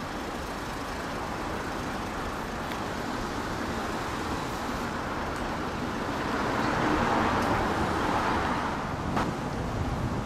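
Road traffic on a city street, a steady rush of passing cars, with one vehicle swelling louder as it goes by from about six to nine seconds in. A short sharp tap sounds just after.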